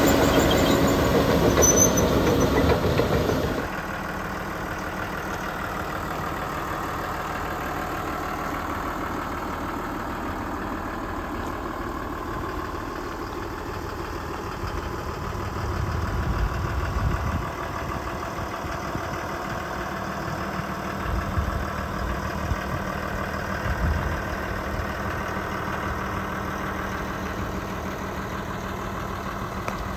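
Caterpillar D5G XL bulldozer's diesel engine running: loud at first, then dropping sharply about three and a half seconds in to a steady idle, with a few brief swells later on.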